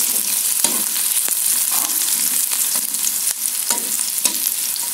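Sliced garlic, ginger and onion sizzling in hot oil in a wok as the garlic turns golden, with a steady hiss. A metal spatula stirs them, scraping and clicking against the pan several times.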